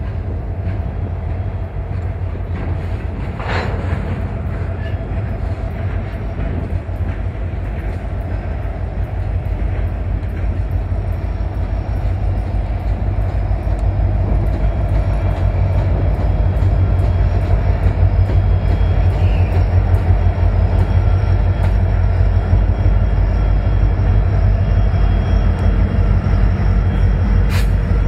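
Union Pacific diesel locomotives hauling a doublestack container train, their engines running with a heavy low rumble that grows louder about halfway through as they close on the microphone, with a few sharp clicks.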